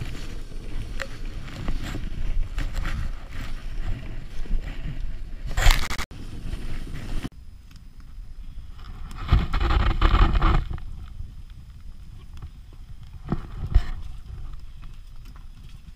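A sled sliding fast through deep powder snow, a steady rushing scrape with snow hitting the microphone, which cuts off abruptly about six seconds in. After that, quieter handling of a small sheet-metal tent wood stove, with a brief louder scrape about nine to ten seconds in as its door is opened on the fire.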